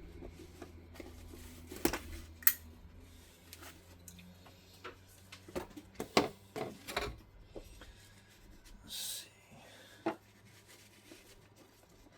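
Scattered clicks and taps of tools and laminated X-Pac fabric being handled while a bag is assembled by hand, with a short crinkling rustle about nine seconds in.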